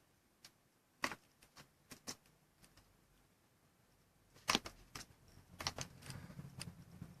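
A few scattered sharp clicks and taps, the loudest about four and a half seconds in, with a faint low hum coming in near the end.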